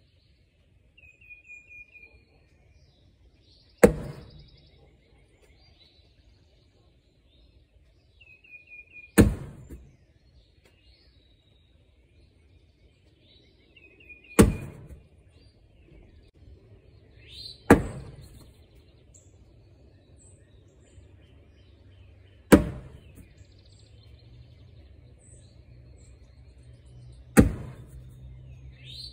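Cornhole bags landing one at a time on a wooden cornhole board: six sharp thuds about every four to five seconds, each ringing briefly. Between the throws a bird sings a short high trill three times.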